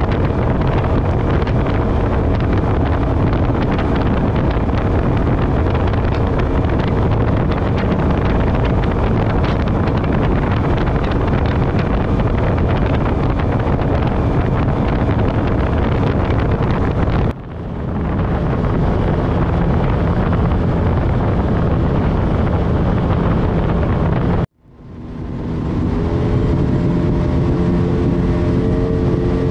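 Outboard motor driving a small speedboat at speed: a steady engine drone under rushing wind and water noise. The sound dips briefly a little after halfway, then cuts out near the end and swells back in.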